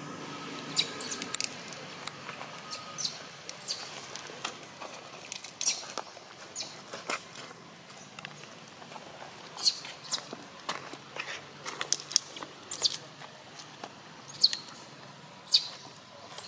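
Baby macaque giving short, high squeaks at irregular intervals, in protest while it is held by the arm.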